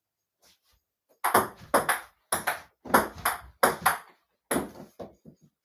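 Table tennis rally on a mini table: a quick run of about a dozen sharp clicks of the ball off paddles and tabletop, roughly three a second, starting about a second in. A few fainter taps follow near the end.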